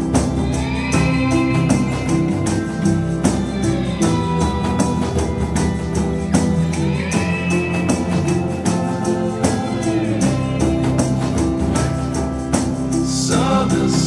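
Music: an instrumental passage of a song with a steady beat and held chords. A sliding melodic line comes in about a second in and again about seven seconds in.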